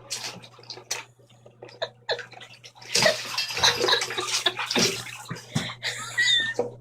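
Water splashing and sloshing in irregular bursts, busiest through the middle, with a short squeaky high tone near the end.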